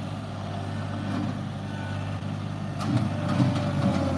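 John Deere tractor engine running steadily while working a backhoe in shale, with a few sharp clanks about three seconds in.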